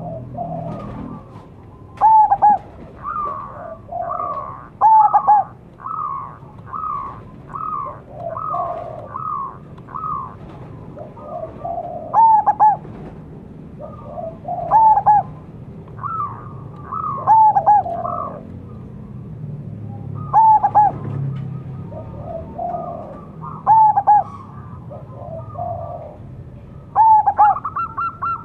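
Zebra dove (perkutut) cooing: short staccato phrases of arched notes, with a loud phrase every few seconds and softer notes between.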